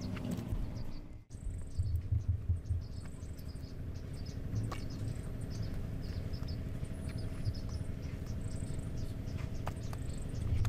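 Insects chirping in short, high trills and ticks that come and go, over a low rumble that swells a few times.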